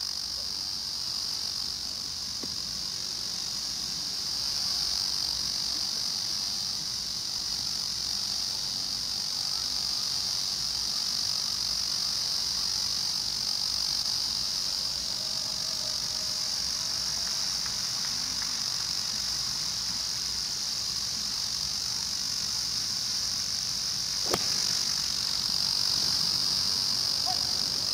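Summer insects keep up a steady high-pitched drone. About 24 seconds in, a golf club strikes the ball from the fairway with one sharp click.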